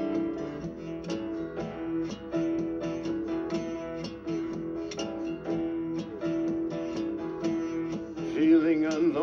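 Background music: strummed and picked acoustic guitar with a steady beat, and a singer coming in near the end.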